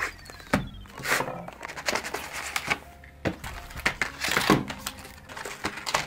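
Packaging of a RAM kit being opened by hand: a cardboard box and a clear plastic tray crinkling, rustling and clicking in a run of short, irregular sounds.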